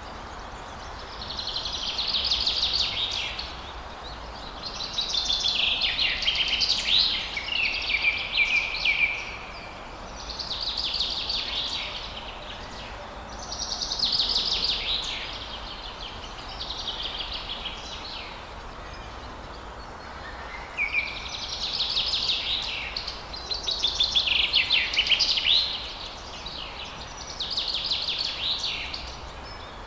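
Songbirds singing in a forest: repeated bouts of rapid, high chirps and trills every few seconds over a steady background hiss.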